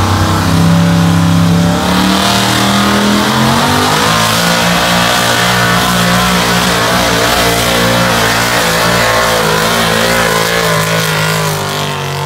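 Pickup truck's engine running hard under full load, dragging a weight-transfer pulling sled. The revs climb about two seconds in and then hold steady and loud.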